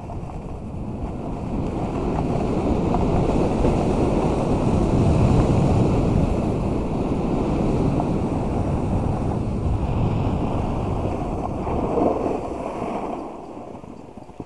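Wind rushing over the camera microphone and a snowboard sliding on snow during a run downhill, a steady rush that swells over the first few seconds and drops away near the end as the rider slows.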